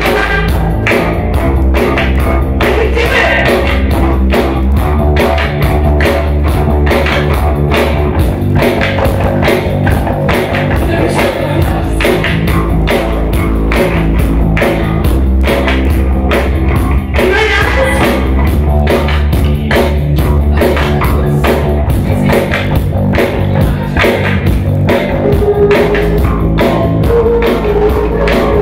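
Live rock band playing: electric bass, guitar and drums with a steady beat, and a woman singing into a microphone.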